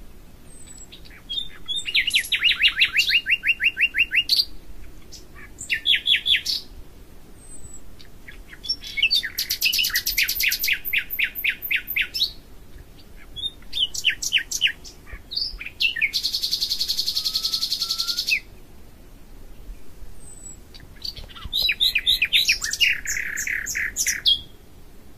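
A songbird singing in phrases of fast repeated notes, each phrase a second or two long with short pauses between, about six phrases in all. One phrase, about two-thirds of the way in, is a buzzy, hissing trill.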